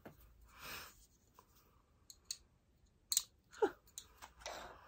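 Faint handling sounds of a frosted glass cosmetics jar as its wooden screw lid is twisted off: a few soft rustles and scrapes with sharp clicks around the middle.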